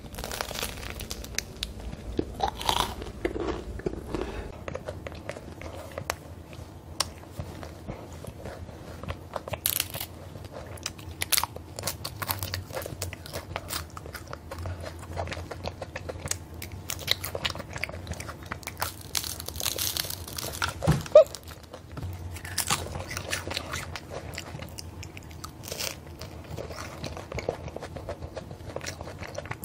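Crisp, flaky croissant being bitten and chewed close to the microphone, with repeated crunching and crackling. One louder sharp snap about two-thirds of the way through; near the end, strips of the crust are torn off by hand and eaten.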